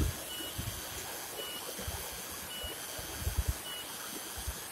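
Shallow rocky stream flowing, a steady rush of water. A short high peep repeats about once a second, and a few low thumps come around three seconds in.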